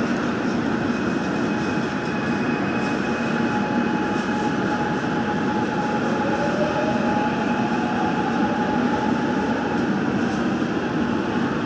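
Inside a Gwangju Metro Line 1 subway car as it pulls out of a station and gathers speed into the tunnel: steady running noise with a thin motor whine, and a second whine that starts rising in pitch about six seconds in.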